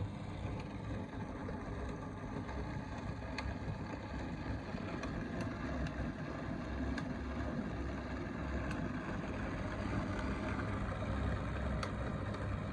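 Zelmer Next jug blender motor running steadily, blending milk with frozen cherries, strawberries and apple. A few sharp clicks come now and then, which the cook thinks may be a cherry pit in the mix.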